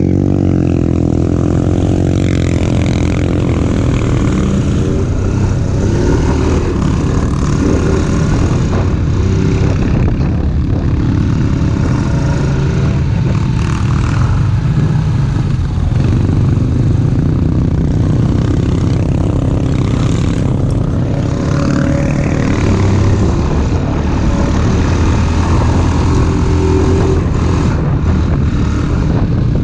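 ATV engine running continuously under way, its pitch rising and falling as the throttle changes.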